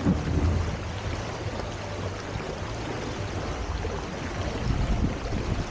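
Water rushing past the hulls of a Hobie Tiger F18 catamaran under sail, with wind buffeting the microphone: a steady rushing noise over a heavy, fluttering low rumble.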